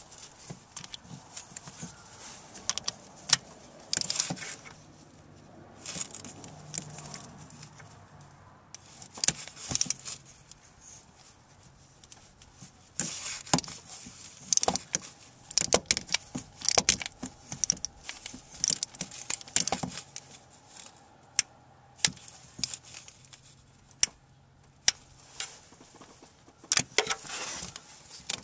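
Socket wrench and extension turning a spark plug in an engine's cylinder head: irregular metallic clicks and jingly clinks of the steel tools.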